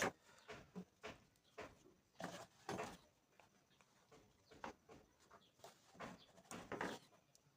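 Scattered faint clicks and taps of small handling noises as wires and a soldering iron are worked on a car door speaker.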